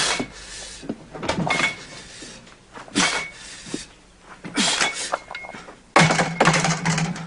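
A barbell being bench-pressed: about five bursts of effortful breathing and straining, with the metal bar and plates clanking. The longest and loudest comes about six seconds in, when the bar is gripped from above.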